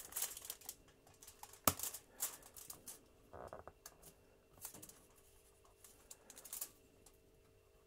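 Light handling sounds from a flattened PVC strip held against a small wooden block and marked with a pencil: irregular small clicks, taps and short scratches. The loudest is one sharp knock a little under two seconds in.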